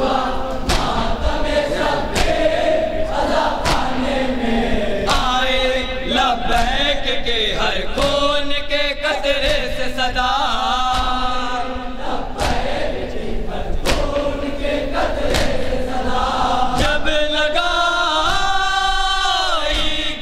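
Men's voices chanting a nauha (Shia mourning lament), a lead group of reciters on a microphone with the crowd joining in, over a steady beat of matam chest-strikes about every three-quarters of a second.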